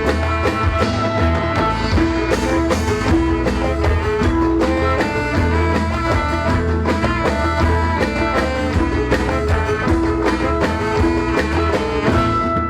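An instrumental ensemble playing a zapin, a Malay dance tune: quick plucked-string melody notes over a steady bass and drum beat.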